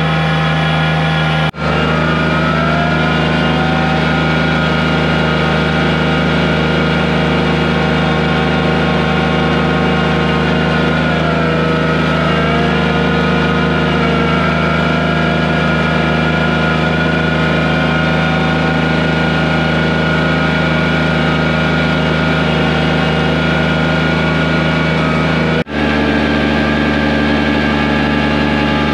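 John Deere compact tractor's three-cylinder diesel engine running steadily as it pulls a steel box drag through loose dirt. Its pitch sags briefly and comes back up about eleven to thirteen seconds in, and the sound drops out for an instant twice, about a second and a half in and near the end.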